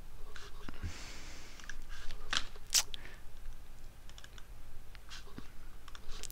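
Computer mouse clicks: a few short sharp clicks spread over several seconds, some in close pairs, as a tab stop on the ruler is double-clicked again and again to open a dialog.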